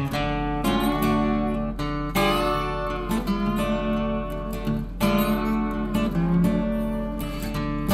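Background music led by a guitar, with chords struck every few seconds and left to ring over a steady low bass.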